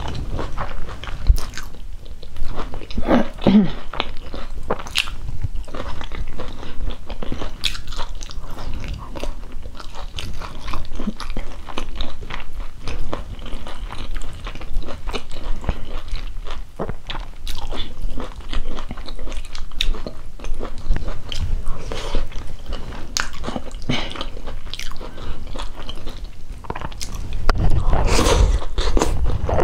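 Close-miked eating sounds of a person chewing ugali, stewed cabbage and beef: a steady run of wet smacking and chewing clicks, with a louder stretch near the end as a mouthful of cabbage goes in.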